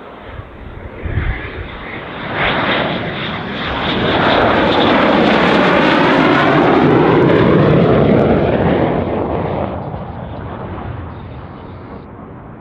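Two-seat Dassault Mirage 2000 fighter on final approach with its gear down, its single SNECMA M53 turbofan running. The jet noise swells as it flies past, with a swirling, shifting tone at its loudest, then fades as the jet sinks toward the runway.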